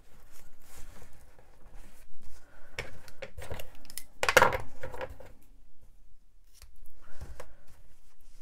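Hands working striped ribbon and card stock on a craft mat, with a louder clatter about halfway through as a pair of scissors is picked up from the desk. A few short, sharp clicks follow near the end as the scissors close on the ribbon ends.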